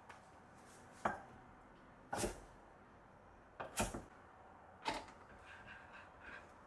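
Kitchenware being handled on a counter: about five separate sharp knocks and clacks over six seconds, then a few faint small taps near the end.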